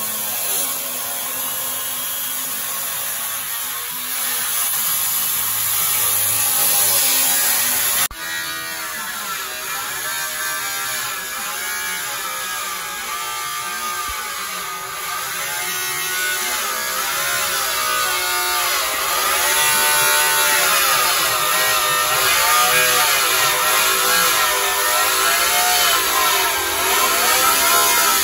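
Handheld angle grinder grinding rusty sheet steel on a car body's inner rocker panel. The sound changes abruptly about eight seconds in; after that the motor's whine keeps wavering up and down as the tool bears on and eases off the metal.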